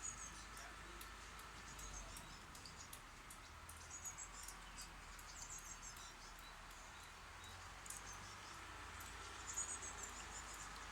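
Faint, very high-pitched chirping of nestlings in a birdhouse, coming in short bursts every couple of seconds: the chicks calling as the parents come to feed them. A few light clicks are mixed in.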